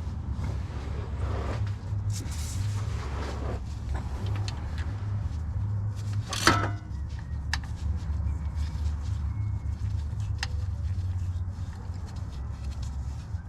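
Hand-tool and metal-part handling during engine work: rustling and scraping, one sharp metallic clank with a short ring about six and a half seconds in, and a few lighter clicks, over a steady low hum.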